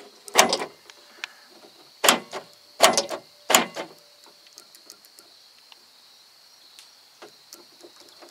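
Power door lock actuators of a 1986 Ford F-150 clunking four times as the locks cycle, each clunk followed by small clicks. The actuators work only off and on, which the owner takes as a sign that they are failing and need replacing.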